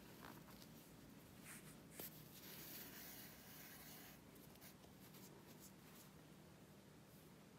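Faint scratchy rustling as embroidery floss is drawn through a knitted doll's face and fingers handle the knit fabric. There is a small click about two seconds in and a longer hissing pull just after it, over a low steady hum.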